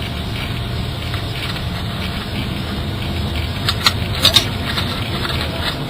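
Steady low hum inside a car cabin, with a few sharp plastic clicks about four seconds in as a new Megaminx twisty puzzle is handled and turned.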